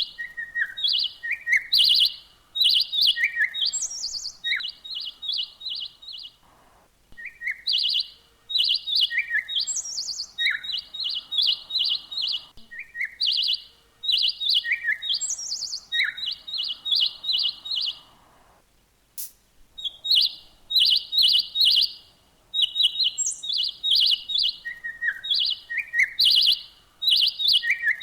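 Songbird chirping in quick runs of short, evenly repeated notes, mixed with higher down-slurred notes and lower short notes. The song breaks off briefly twice.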